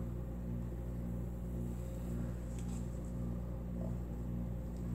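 A steady low hum of several even pitches, unchanging throughout.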